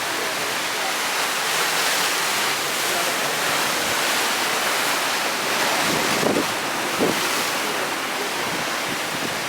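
Sea surf washing onto the shore: a steady rush of breaking waves that swells and eases.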